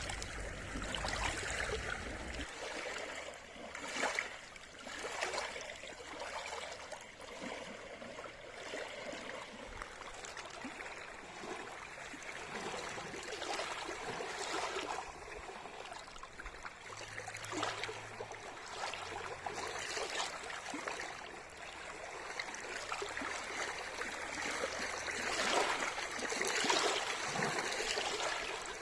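Small lake waves lapping and breaking on shoreline rocks: a steady wash of water with irregular splashes that swell and fade every few seconds.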